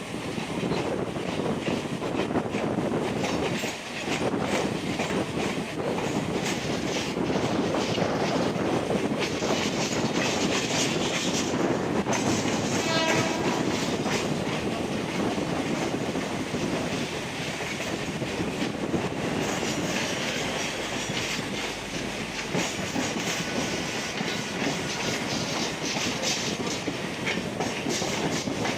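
Electric local train (ICF-built EMU) running on the line, its steady rumble carrying a clickety-clack of wheels over rail joints, as heard from on board. A brief horn-like tone sounds about halfway through.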